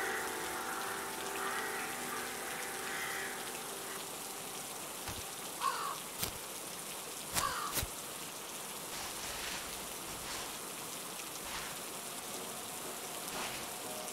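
Steady rain falling, with a crow cawing twice, about six and seven and a half seconds in.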